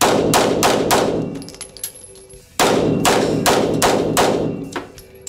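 Glock G19 9 mm pistol fired in rapid succession, two quick strings of shots at about three a second with a pause of about a second and a half between them. Each shot echoes in the indoor range.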